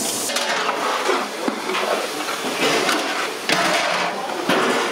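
Clatter of steel cooking pots and lids, with a few sharp knocks over a steady background of kitchen noise.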